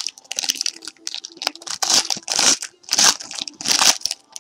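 A trading card pack's foil wrapper being torn open and crinkled right at the microphone, in a run of short crackling rips.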